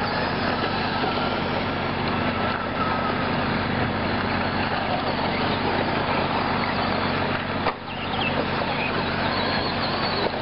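Radio-controlled short-course trucks racing on a dirt track: a steady mix of motor whine and tyre and track noise over a low hum, with a brief dip about three-quarters of the way through.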